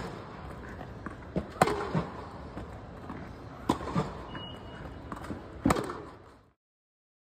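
Tennis balls being hit with rackets and bouncing on an indoor hard court, sharp pops about every two seconds, echoing under the dome. The sound then cuts off suddenly.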